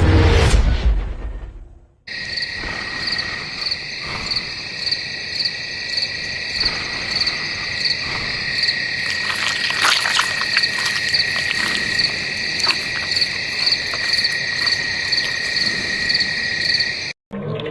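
Crickets chirping in a steady, high, pulsing night-time chorus that cuts off suddenly near the end. In the first two seconds, a low rumbling sound fades out before the chirping begins.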